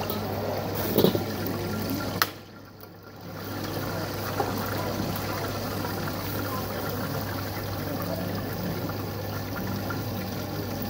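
Steady rushing noise from a stall's gas wok burner, with a low hum under it. There is a sharp knock about a second in, a click a little after two seconds, a brief drop in the noise, and then the steady rush again.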